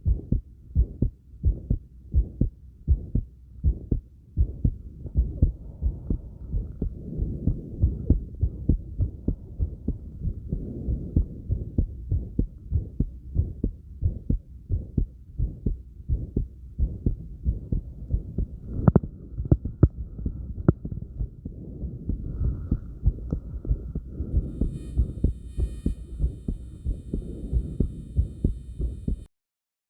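A person's heartbeat, fast and steady in paired lub-dub thumps, raised by light crunches, with soft breathing heard between the beats. Two sharp knocks of body movement come past the middle, and faint high tones join near the end before the sound cuts off.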